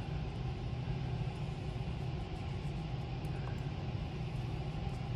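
Steady low rumble of room background noise with no clear events in it.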